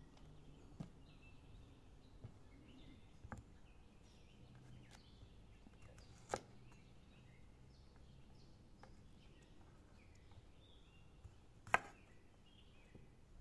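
A few sharp, isolated chops of a cleaver cutting the stems off eggplants against a stone slab, the loudest two about halfway through and near the end.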